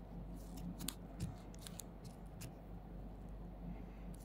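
Faint, irregular clicks and taps of fingertips on a phone's touchscreen over a steady low electrical hum.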